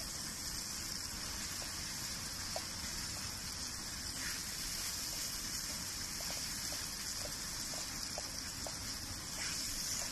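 Tomato masala frying in oil on a hot tava, a steady sizzling hiss, with faint scattered ticks as a steel spatula presses and stirs the tomatoes.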